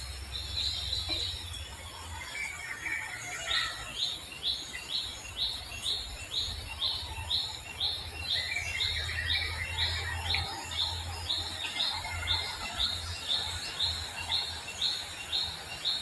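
A bird repeating a short high call about twice a second, with other birds chirping now and then and a steady faint insect buzz underneath.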